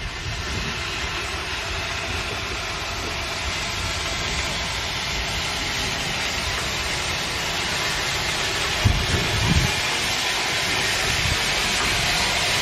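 Steam locomotive rolling slowly toward the listener, a steady hiss of steam over a low rolling rumble, growing gradually louder as it nears. Two short low knocks about nine seconds in.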